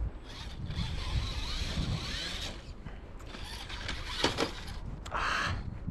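Radio-controlled truck's electric motor and geared drivetrain whirring in several bursts of throttle as it drives in snow, with a sharp click about four seconds in.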